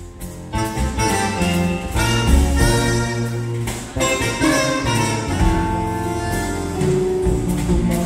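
Live jazz band playing, with a wind instrument carrying the melody over electric bass, guitar and drums. The full band comes back in strongly about half a second in.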